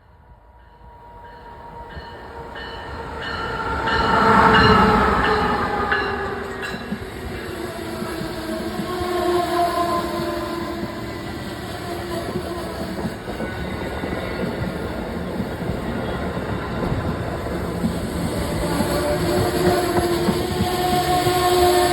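A train approaches and passes close by, sounding its horn as it comes in, loudest about four and a half seconds in. Then the steady rumble and clatter of its wheels on the rails continue as the cars go by.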